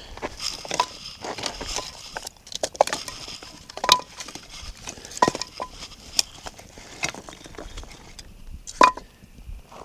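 Irregular light clinks and knocks of objects being handled, several with a short metallic ring; the loudest come about four, five and nine seconds in.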